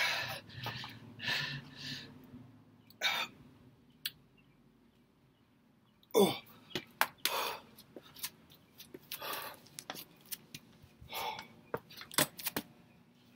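A man's short, forceful breaths and exhalations while doing push-ups, broken by a few seconds of quiet and mixed with short clicks and knocks.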